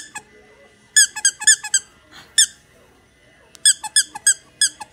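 Squeaky plush dog toy being squeezed repeatedly. A run of about four quick squeaks comes a second in, then a single squeak, then a longer run of about six near the end, roughly four squeaks a second, all at the same high pitch.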